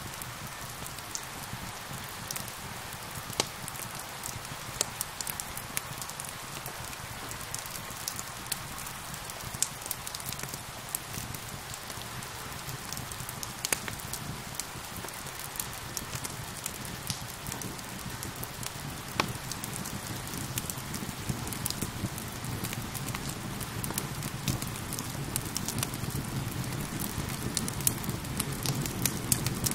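Steady rain mixed with a crackling wood fire: an even hiss of rain under frequent sharp pops and snaps from the burning wood. A low rumble rises gradually in the second half.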